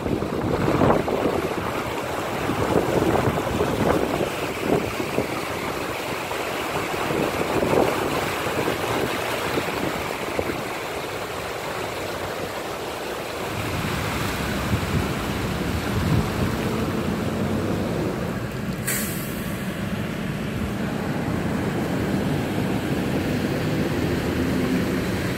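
Car tyres swishing and splashing through shallow street floodwater, with wind buffeting the microphone. A single brief sharp click sounds about three-quarters of the way through.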